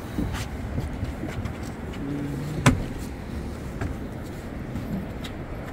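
Steady low rumble of wind, water and boat noise on an open fishing boat, with one sharp click about two and a half seconds in.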